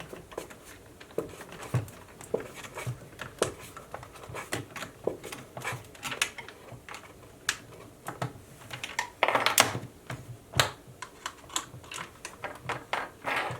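Irregular small clicks and taps of hands handling a reassembled spring-powered airsoft sniper rifle and its tools, with a busier run of knocks about nine to ten seconds in.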